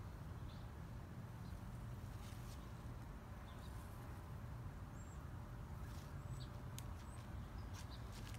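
Quiet outdoor ambience: a steady low rumble with scattered faint clicks and a few brief high chirps, more of them in the second half.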